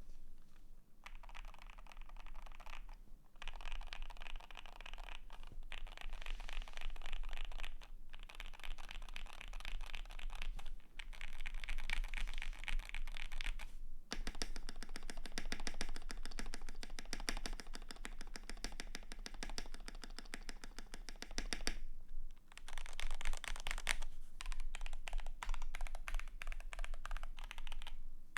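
Fast typing on a custom KBD75 v3.1 mechanical keyboard with lubed and filmed Jwick Black linear switches, a polycarbonate plate and PBT keycaps. It is a dense run of key clacks broken by several short pauses.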